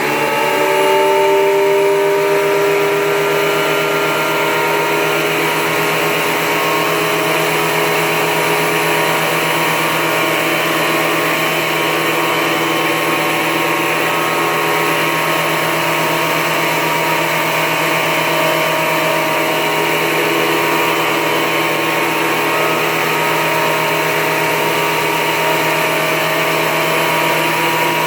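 Porter-Cable portable planer's motor and cutterhead finishing their spin-up about a second in, then running steadily at full speed with an even, multi-toned whine.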